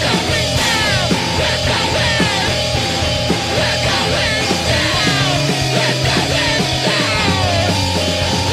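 Loud, noisy hardcore punk / screamo band recording, dense throughout, with many quick falling squeals in the upper range over shifting bass notes.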